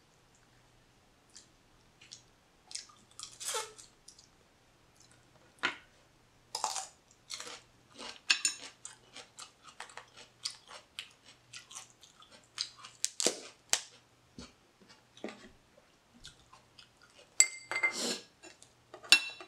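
Blue crab shell cracking and snapping as it is pulled apart by hand, mixed with wet chewing close to the microphone. The sounds come in short, uneven crackles and clicks, with a few louder snaps about 13 seconds in and near the end.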